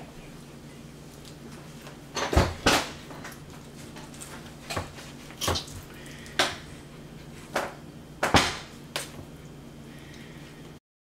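Scattered light knocks and clicks, about eight of them, as a metal trussing needle is worked through a whole stuffed snapper on a wooden cutting board to sew it shut, over a steady low hum. The sound cuts off suddenly near the end.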